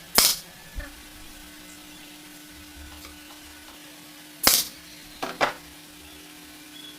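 Five short, sharp knocks or scrapes over a steady low hum. A loud one comes right at the start with a softer one just after. Another loud one comes about four and a half seconds in, followed quickly by two more.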